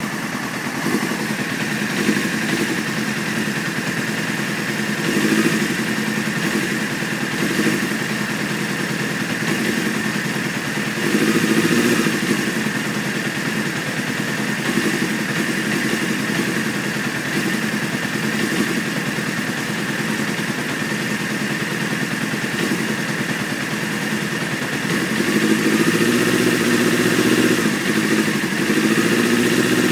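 A 1995 Honda CBR600F3's inline-four engine idles very roughly at a high idle set around 2200 rpm. Its note surges and sags unevenly and grows louder near the end. This rough idle is the kind that often stalls at lights and on cold starts.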